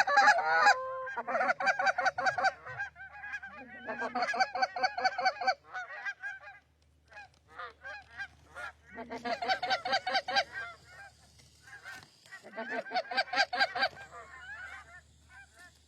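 Rapid goose honking and clucking in dense bursts, one glide up in pitch about a second in. The honking is loudest at the start and drops to a few scattered calls in the middle before surging again twice.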